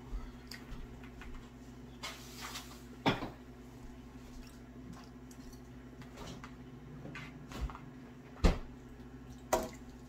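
Forks clinking and scraping on dinner plates while people eat, with three sharper clinks, one about three seconds in and two near the end, over a steady low hum.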